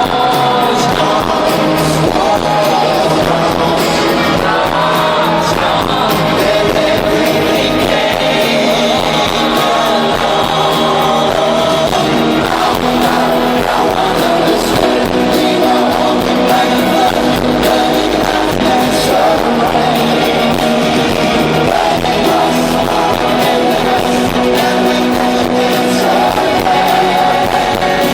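Live pop-rock band performing on stage: male lead vocals singing over band backing with guitar, loud and continuous.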